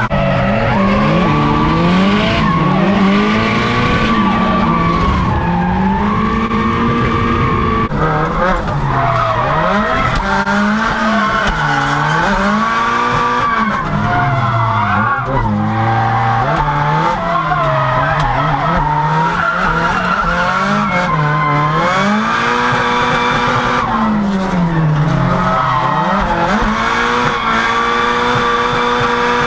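Nissan Bluebird 910's turbocharged SR20 four-cylinder drift engine heard from inside the cabin, revving hard and falling back every couple of seconds through a drift run, with the tyres screeching under it.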